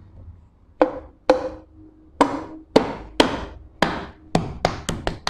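Honda CG125 aluminium clutch cover being knocked down onto the crankcase and gasket by hand: about ten sharp knocks, each with a short metallic ring, coming quicker toward the end.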